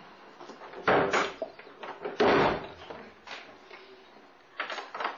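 Two loud thuds a little over a second apart, then a few softer knocks near the end.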